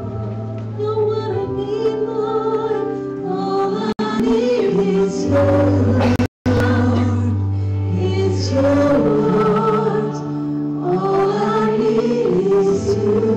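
Two women singing a slow worship song into microphones over long sustained keyboard chords. The sound cuts out completely for a split second about six seconds in.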